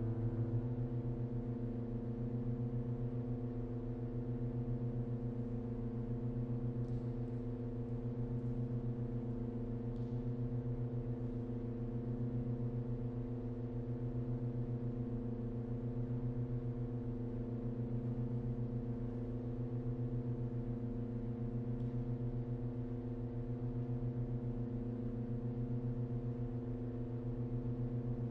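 Pipe organ holding a low, dense cluster of steady sustained tones that beat slowly against each other, pulsing about every two seconds. A few notes drop out about half a second in and the rest of the chord holds on unchanged.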